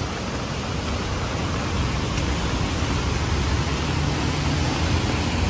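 Heavy downpour: a steady hiss of rain falling on an umbrella overhead and on wet pavement, with a low rumble under it.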